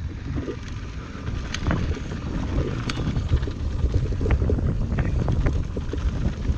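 Mountain bike riding fast down a dirt trail, heard from a chest-mounted action camera: wind rumbling over the microphone, with tyre noise and scattered sharp clicks and rattles from the bike over the ground.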